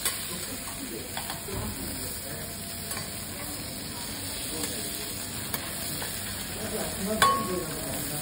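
Food sizzling on a teppanyaki steel griddle, with a few light clicks and scrapes of the chef's metal spatula and knife on the plate. About seven seconds in comes the loudest, a sharp metal clink that rings briefly.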